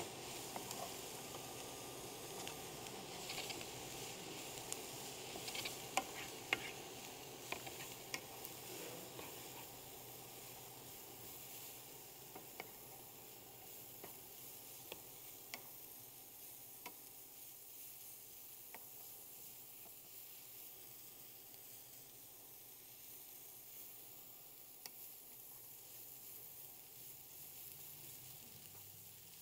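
Shredded cabbage, carrots and minced garlic sizzling in a skillet while a wooden spatula stirs them, with scattered sharp clicks of the spatula against the pan, most of them in the first ten seconds. The sizzle fades slowly toward the end.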